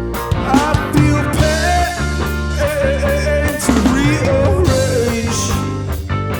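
Rock band playing live: sustained, bending guitar lines over bass and a drum kit.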